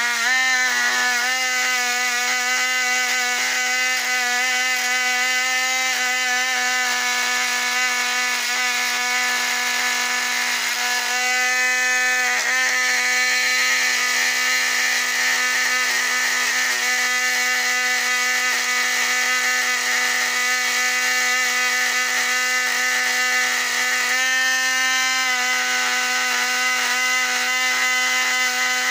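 The electric motor of a Lionel 1065 toy train locomotive, held in the hand and running off the transformer with its wheels spinning free: a steady whirring hum. The pitch shifts briefly near the start, about twelve seconds in and again about twenty-four seconds in.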